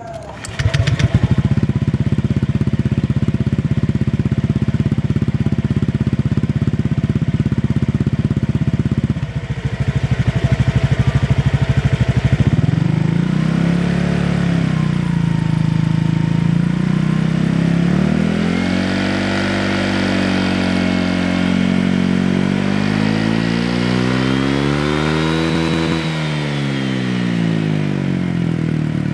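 Honda Vario 125 scooter's single-cylinder four-stroke engine running through a cheap aftermarket standard-style racing exhaust, idling steadily with a quick pulsing beat. From about twelve seconds in it is revved up and down several times, a mellow, bassy exhaust note.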